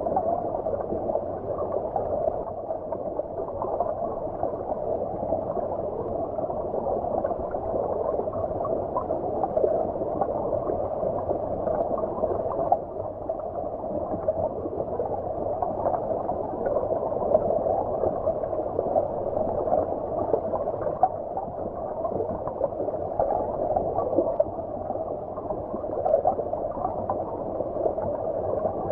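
Stream water heard from beneath the surface: a continuous muffled rush with no treble, the sound sitting in the middle and low range.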